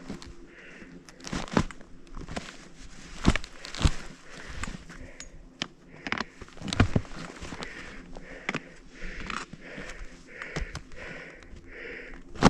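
A skier breathing hard in repeated puffs, mixed with crunching and scraping of skis on snow and several sharp knocks, the loudest about three and six to seven seconds in.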